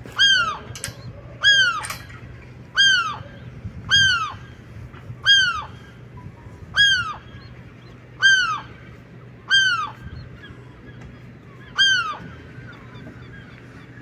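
A gull calling over and over: about ten short, downward-sliding calls, roughly one every second and a half, stopping shortly before the end. It is the agitated calling of a parent gull near its chicks' nest.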